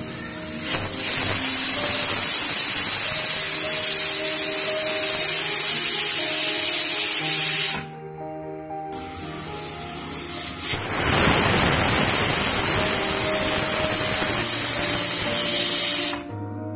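Pressure cooker's weighted whistle valve venting steam with a loud hiss, twice: a hiss of about seven seconds that stops suddenly, then after a short pause another that builds over about two seconds and holds.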